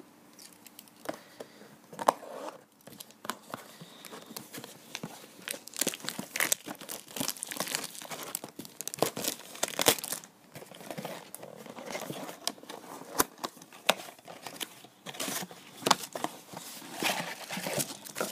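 Trading-card blaster box being torn open by hand: irregular crinkling, tearing and rustling of the cardboard and its packaging, with scattered sharp clicks and snaps, as the packs and patch card are pulled out.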